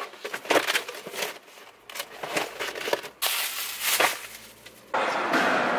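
Cardboard boxes being handled and shifted on a car seat: a run of irregular rustles, scrapes and knocks. About five seconds in it cuts abruptly to a louder, steady wash of noise.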